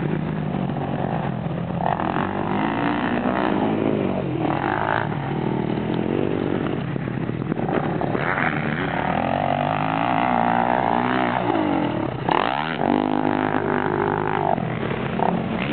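Dirt bike engine revving up and down around a motocross track. The pitch rises and falls repeatedly with throttle and gear changes, with a sharp drop and climb about twelve seconds in.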